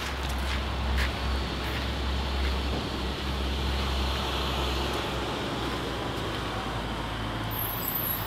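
Steady outdoor background noise: a low rumble with an even hiss over it, of the kind that distant road traffic makes.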